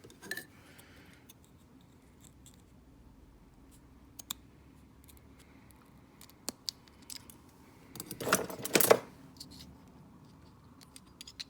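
Small metal parts of a pin tumbler cabinet lock clicking and scraping as they are handled and a follower is pushed into the plug. Scattered light ticks, with a louder burst of clicks and scraping about eight seconds in.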